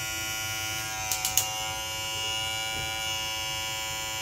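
Moozie 1901 hair clipper motor running steadily at about 6,500–6,600 rpm, a steady electric hum with many overtones. Three quick clicks about a second in.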